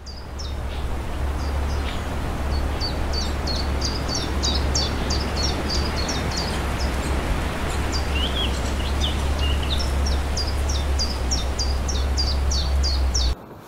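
Wind buffeting the microphone in an open field, with a small songbird chirping in quick runs of short, high notes. Both cut off abruptly near the end.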